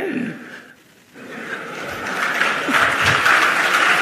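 Audience applauding, starting about a second in after a brief hush and building steadily louder.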